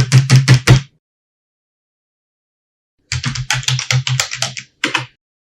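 Typing on an ordinary (non-mechanical) computer keyboard: a short quick burst of keystrokes, a pause of about two seconds, then a longer run of keystrokes and two final taps near the end.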